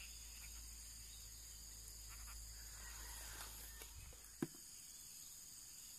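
Faint outdoor ambience: a steady, high-pitched insect chorus, with one short sharp tap about four and a half seconds in.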